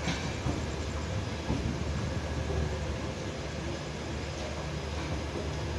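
Steady rumble and rush of a passenger train's coach running along the rails, heard from inside the train.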